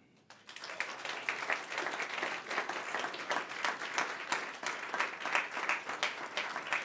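Audience applauding, many people clapping, starting about half a second in and going on steadily.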